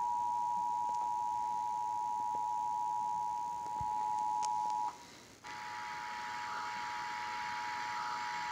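Emergency Alert System attention signal: the steady two-tone beep at 853 and 960 Hz, carried on TV audio. It cuts off with a click about five seconds in, and after half a second of near silence it starts again with static hiss beneath it.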